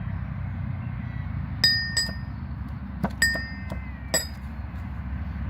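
Metal kitchen utensils clinking against each other: about five sharp, briefly ringing clinks over a steady low hum.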